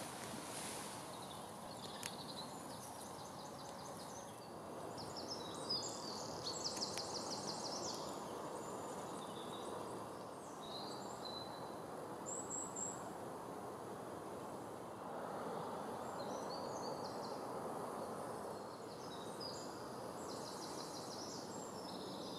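Woodland ambience: small songbirds singing in several short bursts of quick, high, trilled phrases over a steady low background hum.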